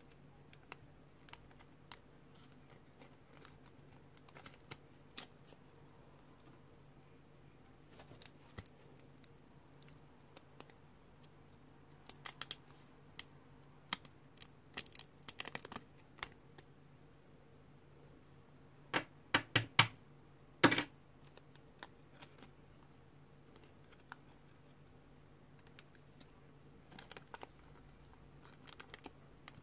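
The paper wrapper and folded picture insert of a 1994 Kent Turbo chewing gum being peeled open and unfolded by hand: sparse paper crinkles and crackles, busiest in the middle, with the loudest crackles about twenty seconds in.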